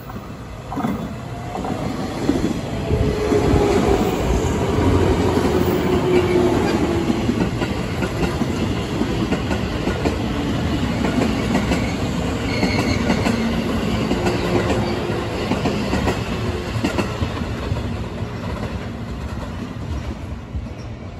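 Green JR West 113-series-type electric multiple unit running past close by, its wheels knocking over the rail joints, with a falling motor whine a few seconds in. The sound builds as the train arrives and eases as the last car goes by near the end.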